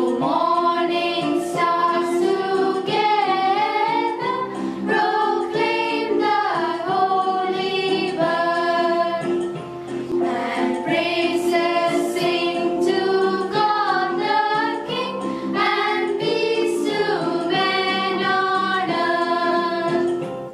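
A small group of girls singing a Christmas song together.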